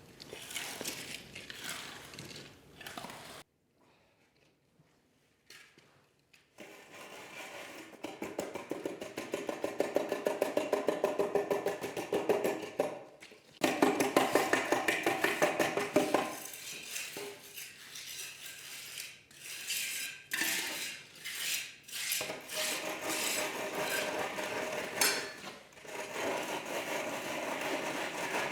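A tool scraping back and forth over wet concrete in quick rhythmic strokes, levelling off a freshly poured floor. The strokes are loudest and most regular in the middle stretch, with a brief pause early on.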